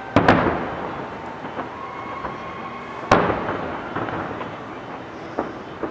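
Aerial firework shells bursting: two booms in quick succession right at the start, a single loud one about three seconds in and a smaller one near the end. Each is followed by a long echoing decay.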